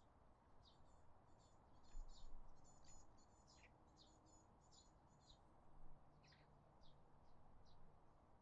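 Small birds chirping faintly in the background: a quick, irregular series of short high notes. A faint low hum runs through the second half.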